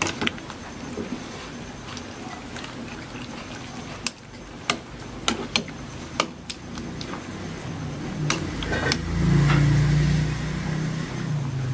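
A metal ladle stirs soup in an aluminium pot, clinking sharply against the pot several times. Near the end a louder low rumble swells for about two seconds and then fades.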